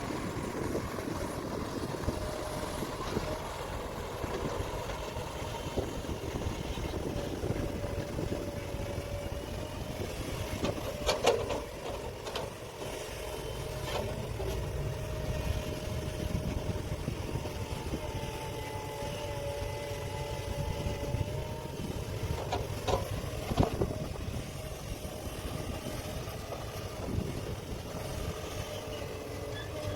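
Heavy diesel mining machinery running steadily, a deep engine rumble with a steady whine over it. Sharp metallic knocks come about eleven seconds in and again twice around twenty-three seconds in.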